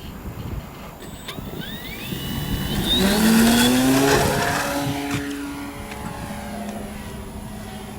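Radio-controlled Sbach 342 model plane's motor and propeller running as it flies past: the whine rises and grows loud about three seconds in, then drops in pitch and fades as the plane moves away.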